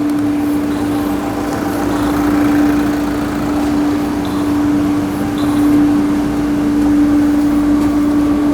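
Warm two-litre car engine idling with a steady hum, run for a combustion-gas (CO2) test of its leaking cooling system.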